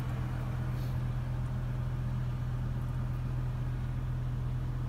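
BMW M5's 5-litre V10 idling steadily in neutral, heard from inside the cabin as an even low hum.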